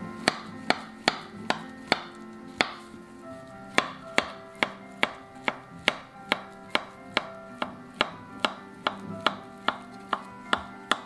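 Kitchen knife slicing a peeled banana into rounds on a wooden cutting board, the blade knocking the board with each cut: about two to three sharp knocks a second, with a short pause about three seconds in.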